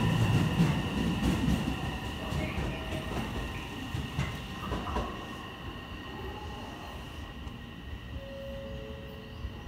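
JR West 227 series four-car electric train pulling away, its wheel rumble loud at first and fading steadily as it recedes down the line.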